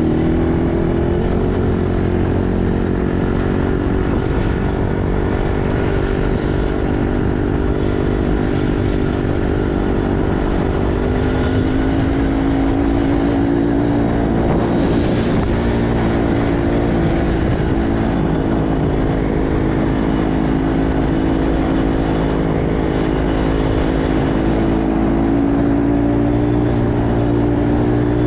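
ATV engine running steadily under way, its pitch dipping and rising again about halfway through as the throttle changes.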